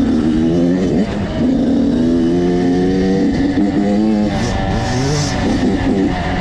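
Dirt bike engine on a trail ride, its pitch rising and falling as the throttle is opened and eased off again and again.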